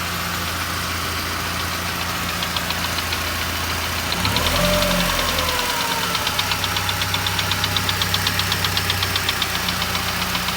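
ZMZ-406 inline-four petrol engine running, blipped briefly about four seconds in, then settling into a regular rapid knock several times a second over the engine hum. This is the knock the owner is tracing, which he says is barely there at idle.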